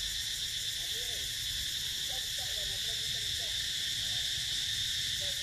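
A steady, high-pitched chorus of insects. Faint, low wavering calls come through about a second in and again between two and three and a half seconds in.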